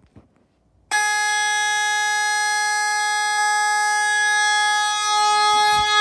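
Federal Signal Vibratone fire alarm horn sounding on continuous, very loud, a steady buzzing tone that starts about a second in, set off from a key-operated alarm station.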